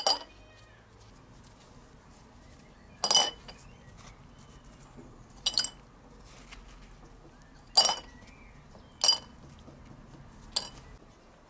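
Small steel nuts, bolts and washers clinking against a glass jar as they are dropped in one by one: six sharp, ringing clinks a second or two apart.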